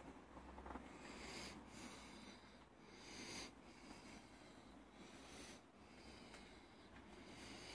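Near silence, with faint breathing close to the microphone: a soft breath about every two seconds.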